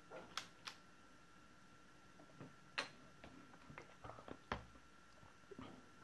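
Faint scattered clicks and light taps of a small screwdriver and the plastic parts of a laptop's underside being handled, with a few sharper clicks among them.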